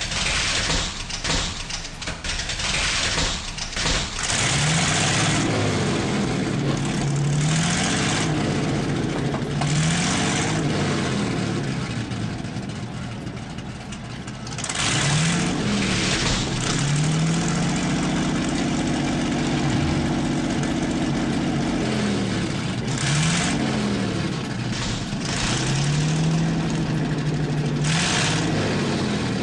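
Heng Long 1/16 RC Jagdpanther tank's sound unit playing a custom sound pack's tank engine through its small speaker, the engine note repeatedly rising and falling as the throttle is worked. Short rushing hisses come in at several of the rises.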